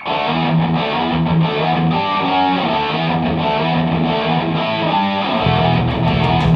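Heavy metal song intro on electric guitar, starting abruptly and picking a repeating melodic riff. The low end fills out about five and a half seconds in, with faint regular ticks coming in near the end.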